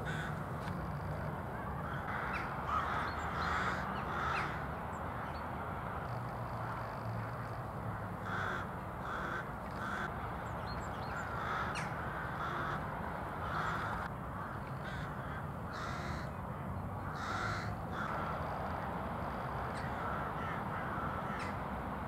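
Crows cawing: harsh calls coming in short runs every few seconds.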